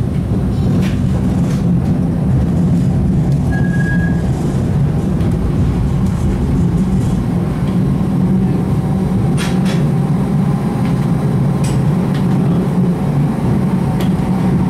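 Electric streetcar running along its rails, heard from inside the car: a steady low rumble and hum from the motors and wheels, with a few sharp clicks and a brief high tone about four seconds in.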